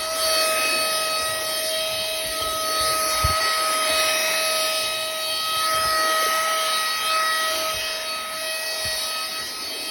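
Mini duck handheld vacuum cleaner running: a steady high-pitched motor whine over a hiss of air.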